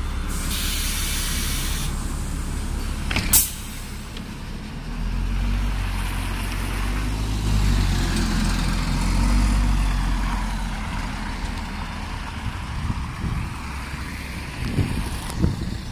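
City bus at a stop: compressed air hisses near the start and a sharp pop of air comes about three seconds in, then the bus engine rumbles, building as the bus pulls away and fading after about ten seconds.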